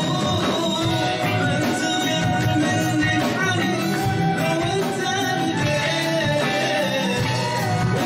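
Live Bahraini Arabic song: a male singer with a band of acoustic and electric guitars, keyboard and hand drums such as congas.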